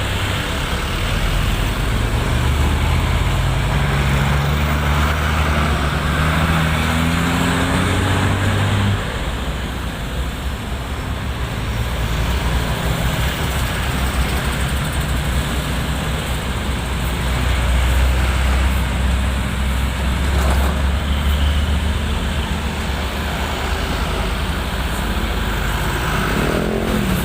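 Heavy diesel engine running under load, its pitch rising over the first nine seconds, then dropping to a steady low drone.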